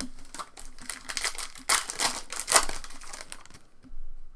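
Foil trading-card pack wrapper crinkling as it is handled and torn open, a dense run of crackles that dies away about three and a half seconds in.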